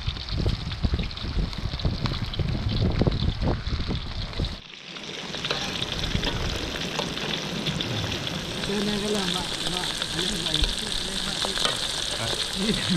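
Cuttlefish frying in hot oil: a steady sizzle. For the first few seconds a low rumble covers it, then it breaks off abruptly about five seconds in, after which the sizzle comes through clearly.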